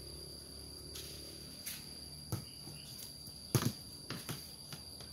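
A ball being kicked and bouncing on a concrete lane: a few sharp thuds, the loudest about three and a half seconds in, with lighter knocks after it. Under them runs a steady high insect drone.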